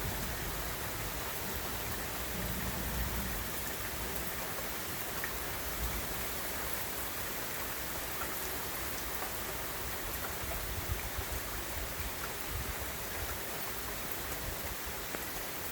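Heavy rain pouring steadily, a dense even hiss with scattered faint drop ticks.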